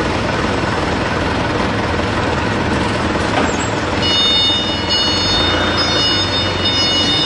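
Forklift engine running steadily at the load, with a low hum; about four seconds in, a steady high whine joins it.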